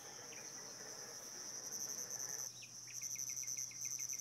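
Crickets chirping in a steady high-pitched trill, joined about two-thirds through by a rapid run of short repeated chirps.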